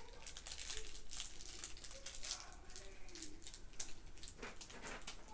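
A toy's plastic wrapper crinkling in a run of small crackles as fingers pick and pull at it. The seal is hard to open by hand.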